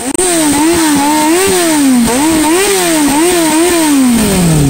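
Sport bike engine being revved through its slip-on muffler, just cut down to 6 inches with the baffles removed. Quick repeated throttle blips, the pitch rising and falling about twice a second, then dropping away near the end.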